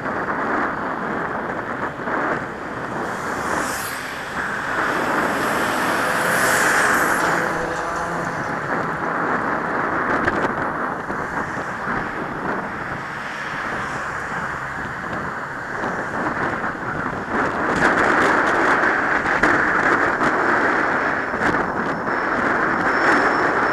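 Wind rushing over a cyclist's helmet-mounted camera microphone while riding, with motor traffic passing along the road.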